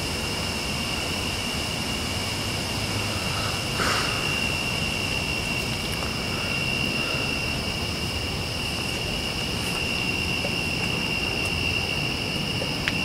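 Night chorus of crickets: a steady, unbroken high trill over a low background rumble, with a brief soft sound about four seconds in.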